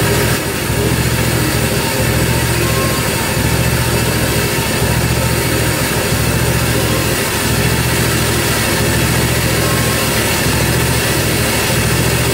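Engine of a Hud-son Homesteader HFE30 portable bandsaw mill running steadily at constant speed, with a brief dip in level near the start.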